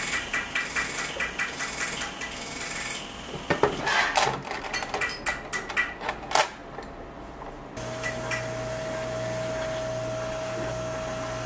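Fast, even ticking for about three seconds, then irregular metallic clinks and knocks as a gold Cuban link chain is handled and laid onto a block of setting wax. About eight seconds in, a handheld butane torch is lit and runs steadily with a hiss, a low hum and a held tone, heating the wax to soften it around the chain.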